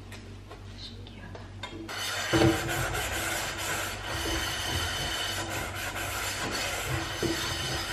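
Sponge scrubbing the inside of a small saucepan, a steady rasping rub that starts about two seconds in, with a knock as the pan is handled just after it begins.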